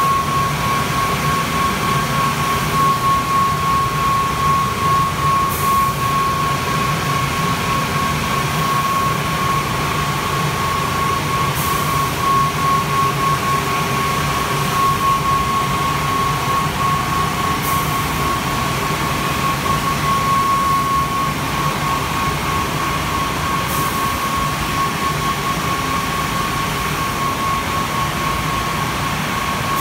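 Kärcher CBC rollover car wash drying blowers running steadily: a loud rush of air with a constant high whine.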